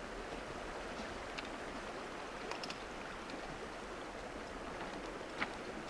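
Steady rush of flowing river water, the Rio Grande, as an even outdoor ambience, with a few faint clicks scattered through it.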